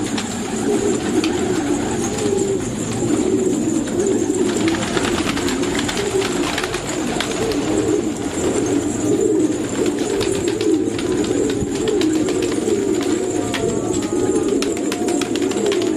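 A flock of fancy pigeons cooing continuously, many birds overlapping into a steady low warble, with scattered sharp clicks, thickest a few seconds in.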